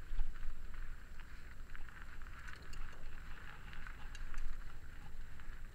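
Mountain bike riding down a loose gravel and rock trail: tyres crunching over stones with frequent short clicks and rattles, over a low rumble of wind on the microphone.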